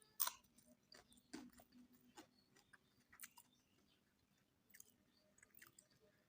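Faint, close-miked chewing and eating of mutton biryani: scattered wet mouth clicks and smacks, strongest in the first few seconds, with a few more near the end.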